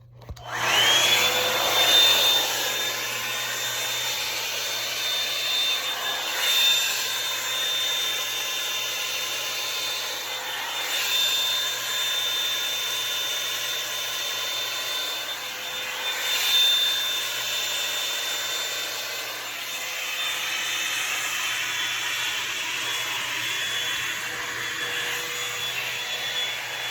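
Revlon One-Step Volumizer hot-air brush switched on: its motor spins up with a rising whine that settles into a steady high whine over rushing air. It runs continuously while drying and straightening hair, with a few brief swells in loudness.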